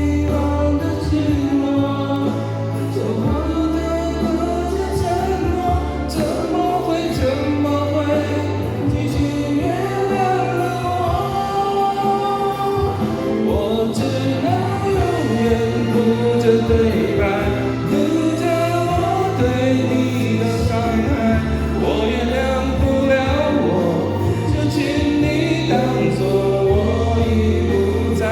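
Music with singing, a choir-like vocal over sustained bass, played loud through a sound system.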